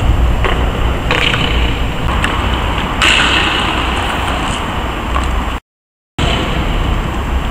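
Stunt scooter on concrete and asphalt: a few sharp knocks of the deck and wheels and a stretch of wheels rolling, over a steady low rumble. The sound drops out for a moment about two-thirds of the way through.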